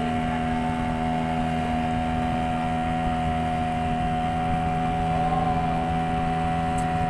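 Small boat's motor running steadily, a constant drone at one fixed pitch.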